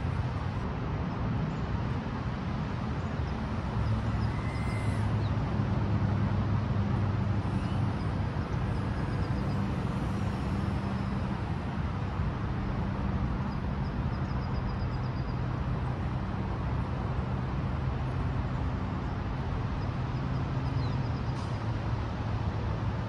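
Steady low rumble of road traffic, with a few faint high chirps.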